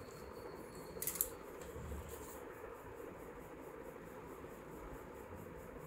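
Steady low background hiss of room tone, with a short cluster of small sharp clicks about a second in.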